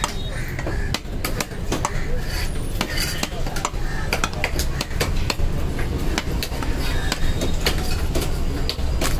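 Heavy fish-cutting knife chopping a fish fillet into cubes on a wooden log chopping block: a quick, uneven run of sharp knocks, about two to three a second, over a steady low rumble.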